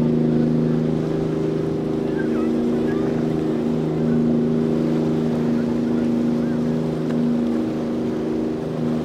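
Motorboat engines running with a steady drone, their pitch shifting slightly a few times.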